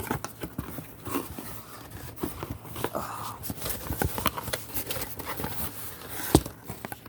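A box and its packaging being handled and opened by hand: an irregular run of scrapes, rustles and clicks, with a sharper knock a little after six seconds in.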